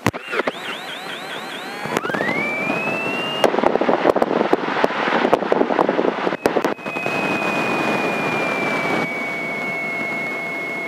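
A Grumman light aircraft's piston engine is started. The starter whine rises, the engine catches with a run of uneven crackling firing pops, then settles into running with a steady high whine over it through the headset intercom.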